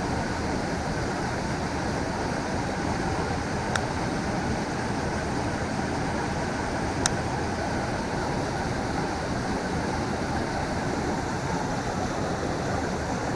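A steady rushing outdoor noise, with two faint sharp clicks about four and seven seconds in.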